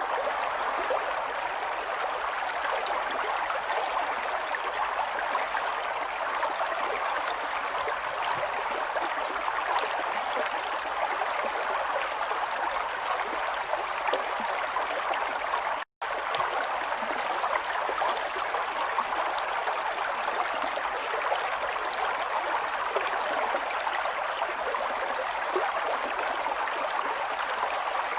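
Steady sound of running water, a stream flowing and trickling, with a split-second dropout to silence about sixteen seconds in.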